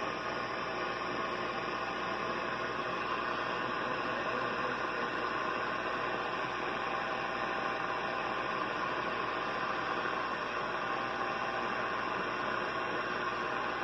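Steady shortwave static and hiss from a Hallicrafters receiver's speaker as its tuning knob is turned across the amateur bands.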